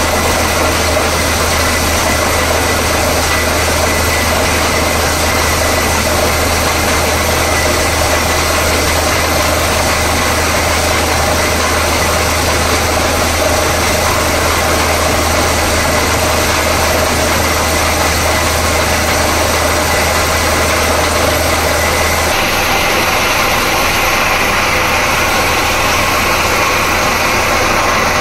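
Borewell drilling rig running steadily: a loud engine drone under a wide mechanical hiss. About three-quarters of the way through, the low drone drops away and the higher hiss grows stronger.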